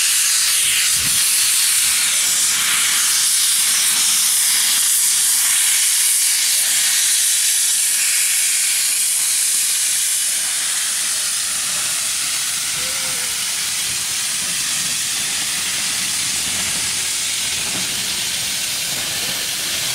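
Great Western steam locomotive hissing steadily as steam blows from its open cylinder drain cocks while it moves slowly. The hiss eases slightly about halfway through.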